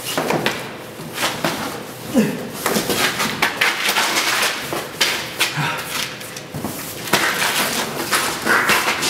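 A large cardboard box scraping and bumping against a car's rear door opening and back seat as it is worked out, with irregular knocks and rubbing, and a few brief grunts of effort.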